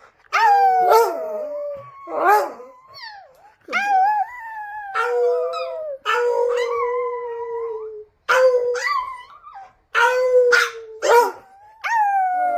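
Chihuahua howling: a string of drawn-out howls, each starting sharply and sliding slowly down in pitch, with brief pauses between them.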